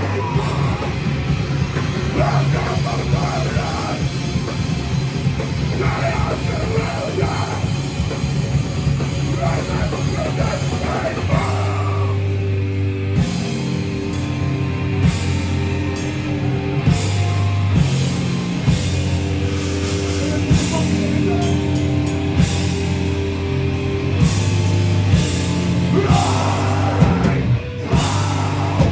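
Heavy metal band playing live: distorted guitars, bass and drums, with vocals over the first part. From about twelve seconds in, heavy held low chords with drum hits.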